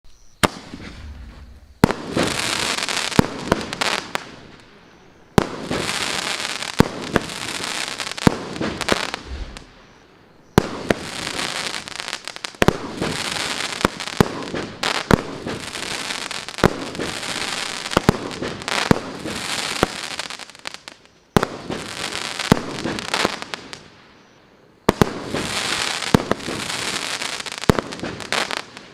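Maxsem SB 36 02 firework cake firing. Sharp bangs are followed by a few seconds of dense hissing noise, in about six waves separated by short lulls.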